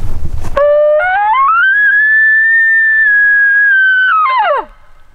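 A short burst of noise, then an elk bugle: one long call that starts low, steps up and glides to a high held whistle, then drops steeply at the end.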